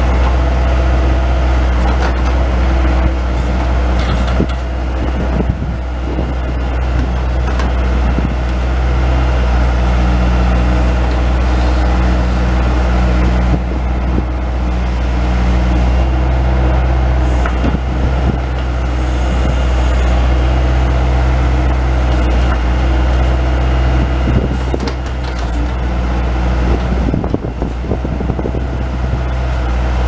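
Bobcat S185 skid-steer loader's diesel engine running steadily under hydraulic load while it works a Bobcat 911 backhoe attachment. A few short, sharp knocks and scrapes come through as the bucket digs into soil and stones.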